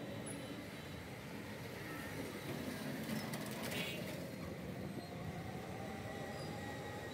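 Street traffic: the steady noise of electric auto-rickshaws, cycle rickshaws and a motorbike passing close by. A brief high-pitched sound comes about three and a half seconds in.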